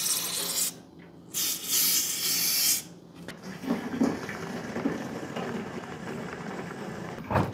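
Aerosol can sprayed through its thin straw nozzle in two hissing bursts, each about a second and a half long. Fainter handling noise follows.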